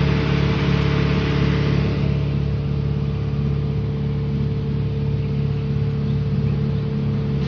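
Loud, steady drone of a large engine running, with a constant low hum and a steady higher tone; it eases slightly about two seconds in.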